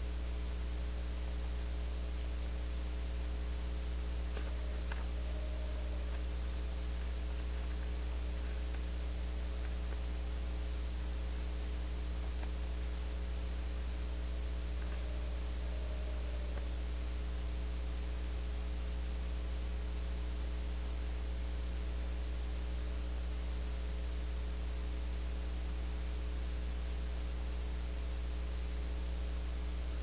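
Steady electrical hum, with a Western Screech Owl faintly trilling three times, each trill about a second long and about ten seconds apart.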